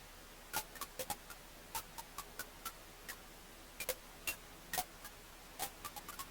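Wood fire crackling in a fireplace: sharp pops and snaps at irregular intervals, about fifteen of them, over a faint steady hiss.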